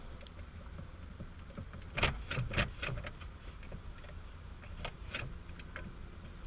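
Scattered clicks and knocks of small parts being handled: a cluster about two seconds in and a few more near five seconds, over a low steady hum. These are the Toyota FRS handbrake lever and its drift-button parts being taken apart and refitted.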